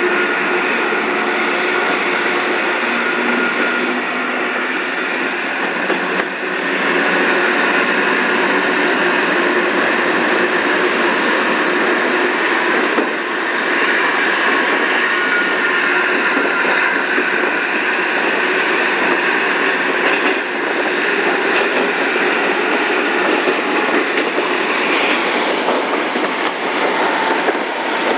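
A San Martín line passenger train in motion, heard from inside the carriage: a steady running noise from the wheels and carriage, with a faint high whine that rises slowly over the first ten seconds.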